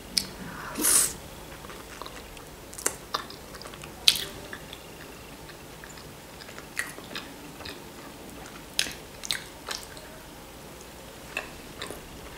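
A person chewing fried chebupizza pastry pockets with cheese and chicken filling, close to the microphone, with short mouth clicks and smacks scattered throughout. The loudest of these comes about a second in.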